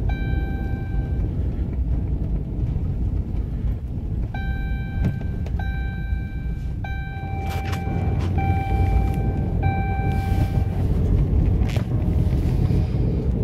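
Steady low rumble of a car's engine and tyres heard from inside the cabin while driving on a snow-covered road, with held pitched notes of background music over it.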